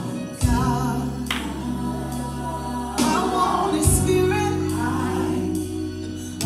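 Gospel music: a choir singing over sustained bass notes, the chord changing about half a second in and again near four seconds.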